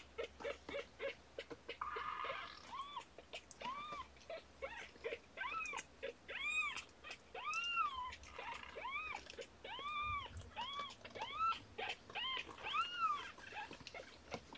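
Young kittens mewing again and again: thin, high cries that each rise and fall in pitch, following one another about once or twice a second, with quicker, lower squeaks in the first couple of seconds.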